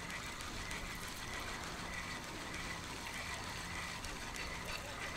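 Fishing reel being cranked, its gears running steadily.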